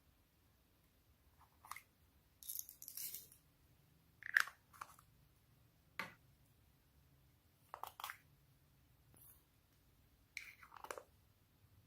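Hands squishing and pressing slime, giving short crackly squelches every second or two, with one sharp click about six seconds in.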